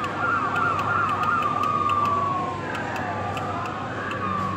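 Toy fire-engine kiddie ride's electronic siren sound effect from its speaker, set off by a dashboard button: a fast warbling yelp for about a second and a half, then one long falling wail, with another falling wail starting near the end.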